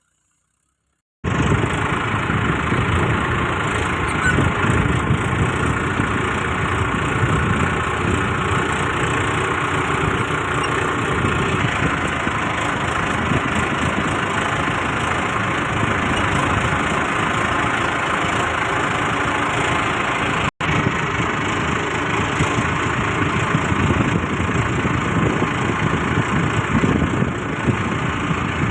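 Tractor engine running steadily under load, starting abruptly about a second in, with a split-second dropout near the two-thirds mark.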